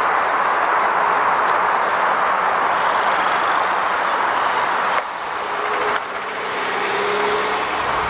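Steady roar of road traffic, with faint, high, short bird chirps over it.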